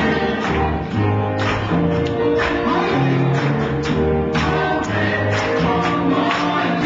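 Cha-cha-chá dance music with group singing over a bass line and regular percussion hits.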